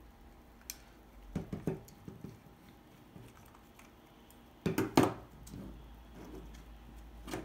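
Handling noises as a metal airbrush is unscrewed from a small cordless compressor: small clicks and taps, then a louder knock about five seconds in as the airbrush and the compressor are set down on the table. The compressor is switched off and not running.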